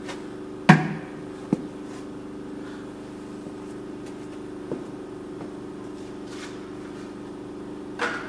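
Steady low machine hum with a few even tones, from equipment running in the shop, with a sharp knock just under a second in, a smaller knock about half a second later, and a short rustle near the end as parts are handled.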